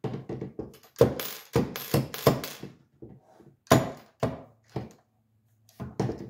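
Irregular knocks and taps of small metal tools and parts on a wooden desk as an Allen key and pick are worked at an AR-10's adjustable gas block to free its detent. The taps come in a quick cluster for the first few seconds, then singly, then a few more near the end.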